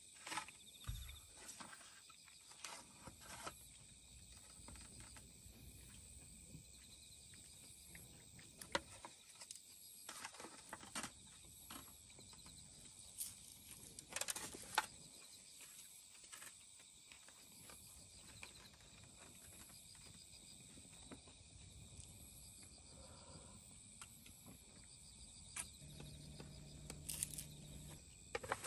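Night insects chirping faintly and steadily, with scattered light clicks and rustles from chopsticks and an aluminium foil tray being handled. A short low hum near the end.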